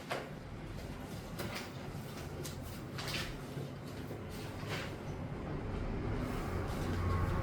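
Low steady room hum with scattered short scratches and light knocks, a few seconds apart, like desk and handling noises during quiet work.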